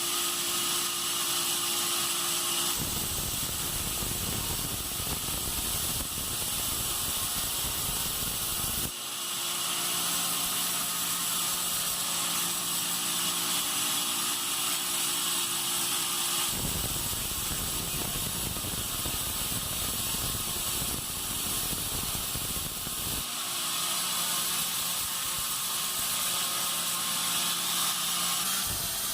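Band sawmill running on pine: a steady motor hum and a high hiss, twice broken by about six seconds of louder rushing noise as the blade cuts through the log.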